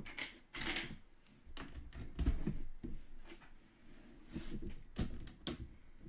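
Loose plastic Lego bricks being handled on a tabletop: irregular clicks, taps and small clatters as pieces are picked out and fitted onto the model.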